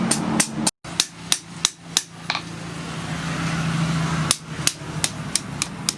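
Blacksmith's hand hammer striking steel on an anvil at about three blows a second, pausing for about two seconds in the middle before the blows resume, over a steady low hum.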